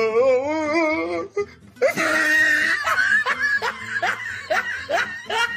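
A person laughing: a wavering, drawn-out high tone, then a run of short high rising bursts about three a second.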